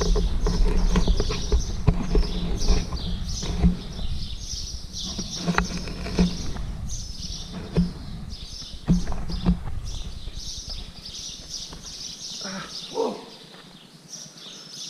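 Irregular footsteps and knocks of shoes and stones on rock during a climb, over a low wind rumble on the microphone that drops away near the end.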